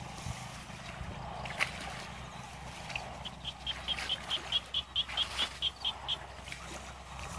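A bird calling a quick, even series of about fourteen short high notes, roughly four or five a second, over a steady low hum.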